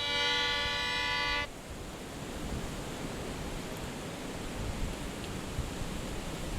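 A held musical chord of several steady notes cuts off suddenly about a second and a half in, leaving a steady rush of ocean surf and wind on the microphone.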